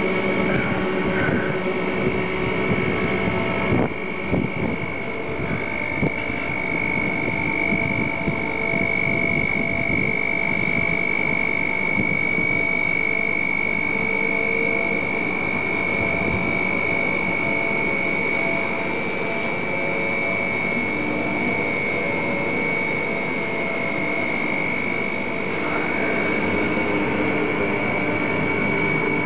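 Harbour gantry crane's hoist drive running steadily under a heavy load, with a constant high-pitched whine over a lower machine hum and a few light knocks a few seconds in.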